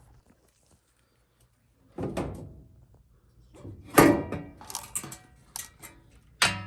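Knocks and clatter from a Speed Queen dryer's cabinet panel being pulled off and handled: a thud about two seconds in, a loud knock at about four seconds followed by rattling, and another sharp knock near the end.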